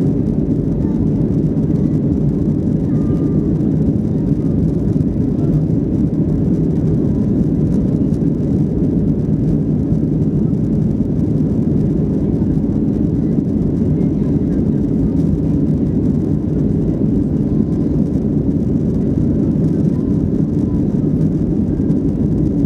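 Steady cabin noise of a Boeing 737-800 climbing out after takeoff: its CFM56-7B engines at climb power and the rush of air past the fuselage, heard from inside the cabin, an even low rumble that does not change.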